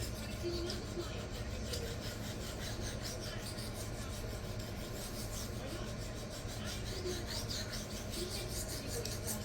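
A thin CTS-BD1N stainless knife blade being stroked freehand across a resin-bonded diamond sharpening stone: repeated short rasping strokes as the edge is worked in sections.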